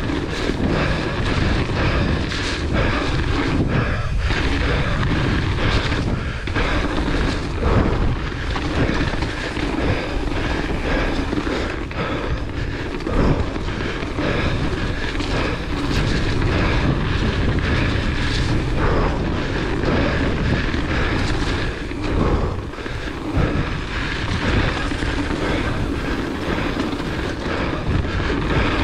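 Wind buffeting the action camera's microphone as a hardtail mountain bike descends a dirt trail at speed. Beneath it run tyre rumble and the frequent rattles and knocks of the bike over bumps and roots.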